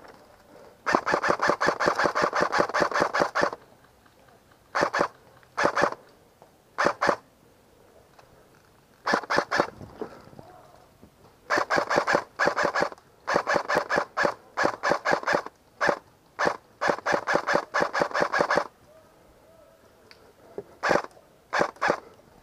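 SIG 556 airsoft electric gun (AEG) firing full-auto bursts, a rapid mechanical chatter. One long burst comes about a second in, then a handful of short bursts, several long bursts in the middle, and two short bursts near the end.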